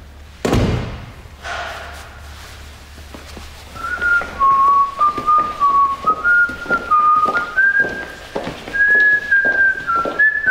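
A man whistling a tune, a wandering line of short notes that starts about four seconds in and runs on. Near the start there is a single loud thunk.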